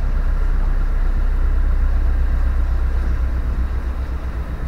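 Narrowboat's inboard engine running steadily at cruising pace, a loud, low drone, as the boat leaves a brick canal tunnel.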